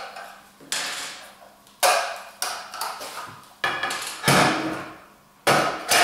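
Clips being taken off a metal-caged squirrel-proof peanut feeder and its parts handled, giving about six sharp clicks and clatters of metal and plastic, each dying away quickly.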